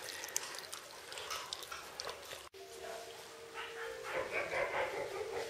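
Wolfdog puppy crunching a raw chicken neck, with quick small cracks of bone and gristle. After a short break, a puppy's voice is heard for about a second and a half near the end.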